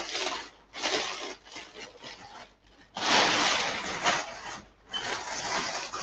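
Crumpled brown packing paper crinkling and rustling as an item is unwrapped from it, in four bursts with short lulls between.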